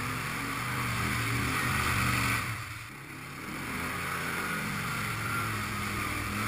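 Quad bike (ATV) engine running under load as it pushes through a muddy creek, with water and mud splashing around the wheels. The engine sound dips briefly about halfway through, then picks up again.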